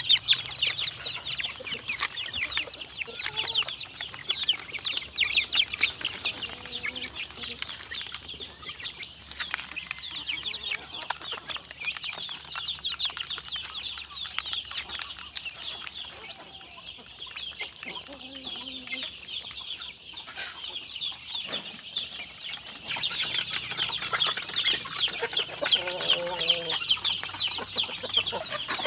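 A flock of young chicks peeping continuously as they crowd around feed, a dense chatter of short high chirps that thickens in the last few seconds, with a few lower clucks near the end.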